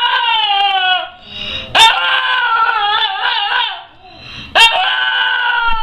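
Puppy giving long, wavering howl-like whines, each starting sharply and sagging in pitch: one trails off about a second in, a full one lasts about two seconds, and another starts near the end.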